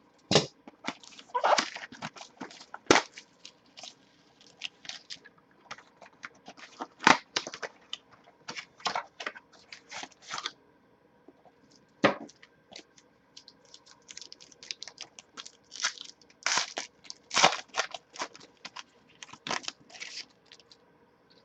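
A mini box and packs of 2012 Topps Finest football cards being opened by hand: irregular crinkling, crackling and tearing of the wrappers, with small clicks from handling the box and cards.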